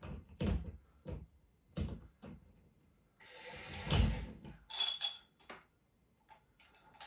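Cordless impact driver run in a short burst of about a second against a lag bolt in a ceiling mount, followed by a brief second spurt, after several sharp knocks and clicks of the bolt and bracket being handled.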